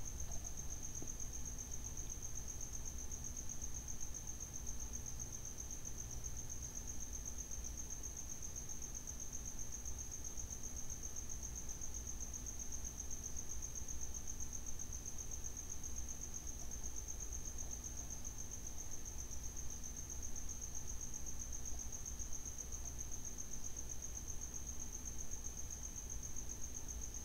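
A cricket's steady high-pitched trill, unbroken, over a low steady hum.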